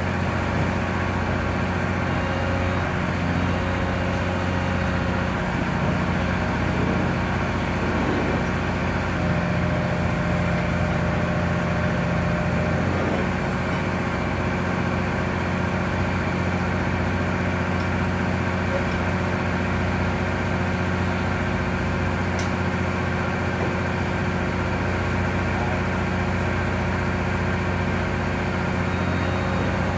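Caterpillar hydraulic excavator's diesel engine running steadily at an even, low pitch while it holds a suspended concrete panel.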